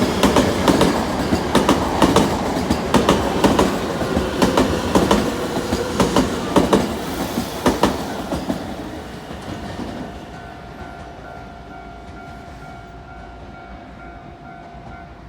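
Electric commuter train on the Nankai Koya Line passing close by, its wheels clicking over the rail joints in a quick series over a loud rumble. The sound fades away after about eight seconds, leaving a faint steady tone.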